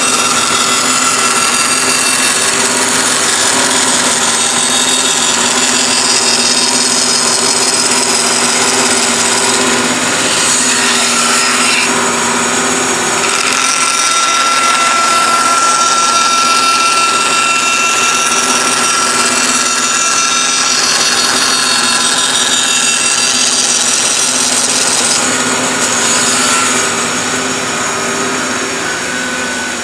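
Bandsaw running and cutting slots into wood: a steady machine hum with a high whine, changing tone a little about halfway through and again near the end.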